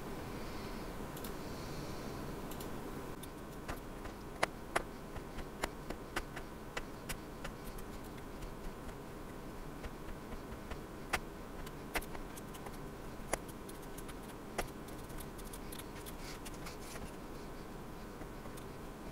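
Punch needle threaded with yarn being punched repeatedly through the fabric: a run of irregular sharp ticks starting a few seconds in, a few a second at first and sparser later, over a faint steady background.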